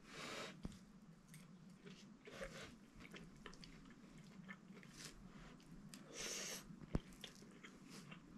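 Faint chewing of a man eating fried trout and noodles, with a few sharp clicks of a fork against the plate, the loudest about seven seconds in.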